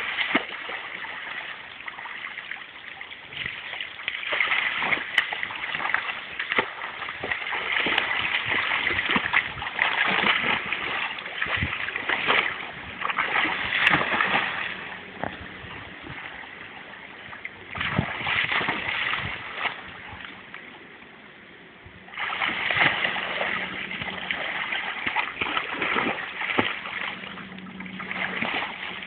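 Water splashing in irregular bursts as a Labrador hangs by its teeth from a rope over a river and kicks and thrashes in the water, with a couple of short quieter lulls.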